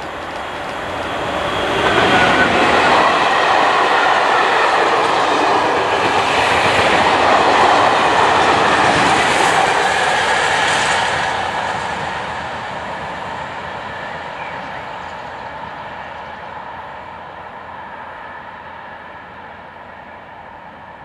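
A train passes close by on the tracks, its wheels running on the rails. It grows loud about two seconds in, stays loud for roughly nine seconds, then fades away slowly as it leaves.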